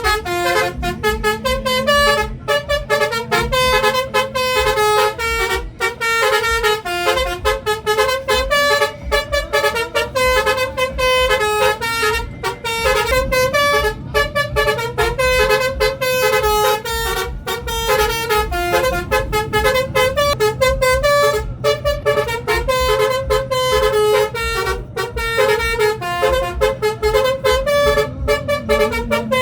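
Bus 'telolet' multi-tone air horn playing a long, fast tune, its notes switching several times a second in an even rhythm, over a low steady drone.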